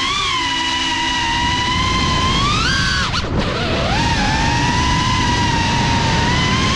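Geprc Cinelog 35 FPV quadcopter's motors and propellers whining at high speed, the pitch wavering with the throttle. About three seconds in, it swells higher, then drops sharply and climbs back as the throttle is cut and punched again.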